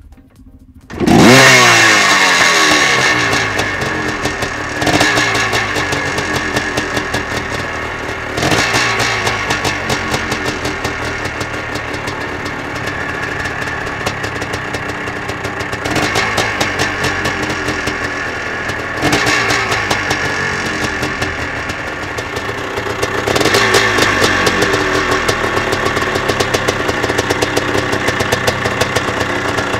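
Kramer 410 motocross bike's single-cylinder two-stroke engine firing up about a second in with a quick rising rev, then running with a throttle blip every few seconds.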